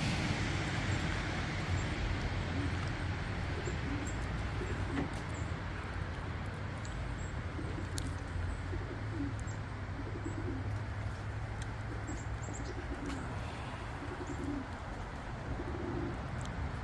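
Racing pigeons cooing: short, low coos repeating about once a second, more frequent from about six seconds in, over a steady background hiss.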